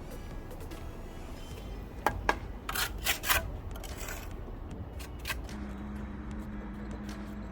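Masonry work: a trowel tapping and scraping mortar on stone, a few sharp clicks about two seconds in, then several short scrapes, with lighter ones later. A steady low hum comes in about five and a half seconds in.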